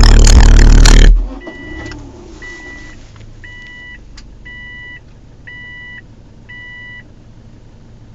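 Car stereo playing music loudly with heavy bass, cutting out suddenly about a second in as the car is started. Then the engine runs low and steady while a dashboard warning chime beeps six times, about once a second.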